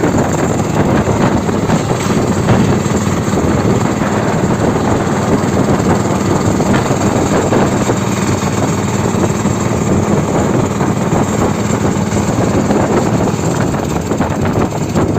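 Sanedo, a home-built farm vehicle powered by a motorcycle engine, running steadily while it works the field to sow peanuts.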